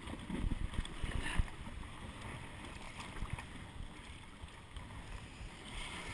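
Water sloshing and churning around a stand-up jet ski's hull, with wind rumble on the microphone and a few dull knocks in the first second or so.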